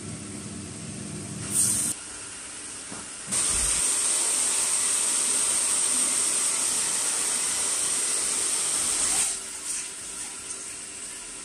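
Handheld hair dryer blowing steadily for about six seconds. It starts abruptly about three seconds in and stops shortly before the end. Before it there is a quieter sizzle from a pan on the gas stove.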